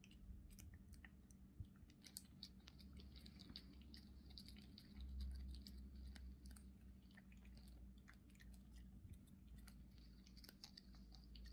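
A cat licking paste treat from a squeeze tube: faint, quick, irregular wet clicks and smacks of its tongue.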